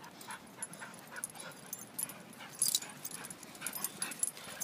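Dogs in rough play: short whimpers and yips, with a louder scuffle about two and a half seconds in.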